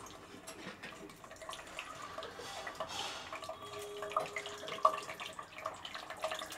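Hot vegetable oil sizzling and crackling with many small pops as peeled hard-boiled eggs are set into the pan one by one, with a sharper knock about five seconds in.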